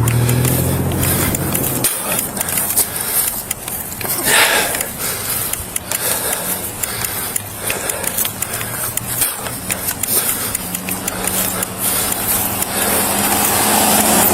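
A motor vehicle's engine running, with rough road and handling noise. The steady engine note drops out about two seconds in and comes back, louder, in the last few seconds.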